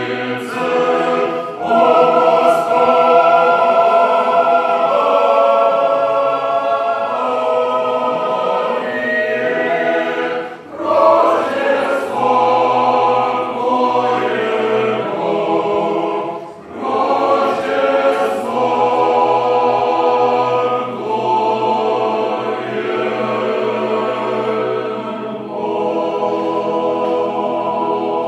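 Mixed choir of men's and women's voices singing Orthodox Paschal vespers hymns a cappella, in held chords and phrases with two short breaks for breath.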